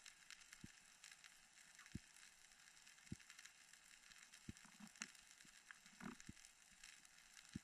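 Near silence underwater: faint crackling of the reef's ambient noise with soft low knocks about once a second.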